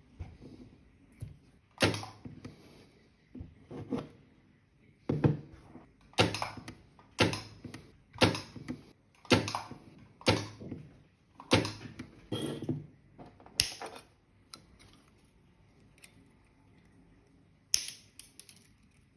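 A series of sharp clicks and knocks, about one a second, from hands working on the hard plastic case of a Ryobi battery pack; after a quieter gap, two more sharp clicks come near the end.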